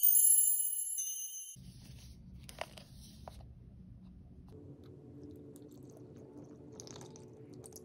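A bright chiming jingle for the first second and a half, then faint handling of a plastic L.O.L. Surprise capsule with a couple of sharp plastic clicks, followed by a thin stream of water being poured into the capsule.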